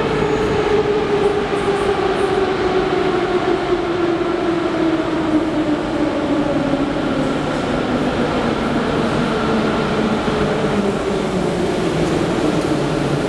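An 81-717-series metro train approaches and brakes into the station over a steady rumble, its motor whine falling slowly and evenly in pitch as it slows. It comes alongside the platform near the end.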